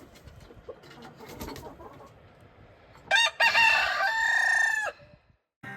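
A rooster crows once, a loud cock-a-doodle-doo in two parts that ends on a long held note, about three seconds in, after a few seconds of faint scattered coop sounds.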